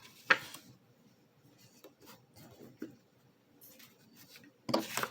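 Tarot cards being handled on a table: a sharp snap as a card is laid down about a third of a second in, then faint rustling and sliding of cards, and a louder burst of card handling near the end.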